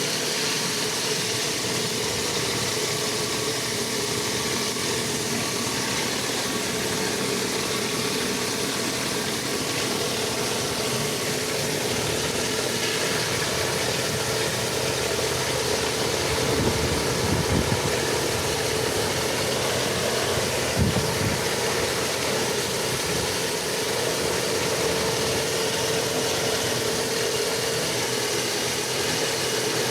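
Pressure washer running steadily: an engine hum under the hiss of the water spray, with two brief louder bumps around the middle.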